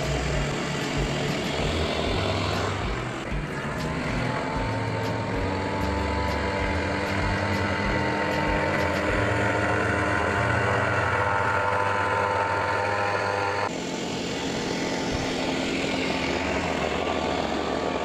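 Small engine of a homemade plywood water-jet boat running steadily under way. The sound changes abruptly twice, about three and fourteen seconds in.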